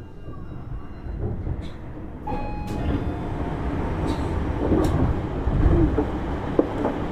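Tobu Tojo Line local train pulling away from a station. Its running rumble builds from about two seconds in, with a few sharp clicks over the rails.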